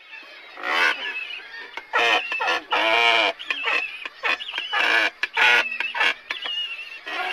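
Waterfowl honking: a run of loud, irregular calls, some with a wavering pitch.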